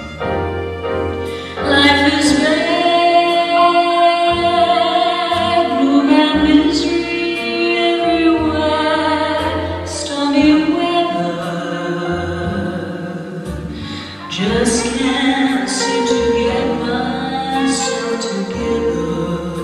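A woman singing a slow ballad over instrumental accompaniment, with vibrato on long held notes.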